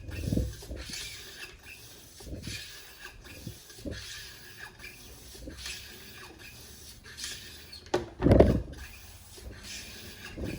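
Cleaning rod worked in and out and twisted inside a rifle bore, scrubbing out the carbon ring. It makes a repeated scraping stroke about every second and a half, with a louder knock about eight seconds in.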